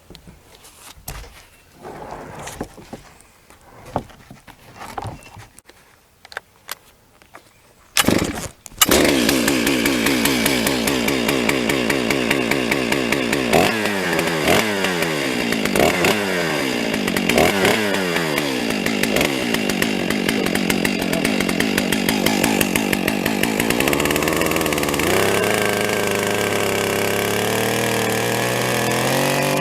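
Stihl 661 chainsaw with a 25-inch bar starting up about eight seconds in, after a few knocks and a short first burst, then running loud at high revs. Its pitch drops sharply several times, then it settles into a steadier, lower tone near the end.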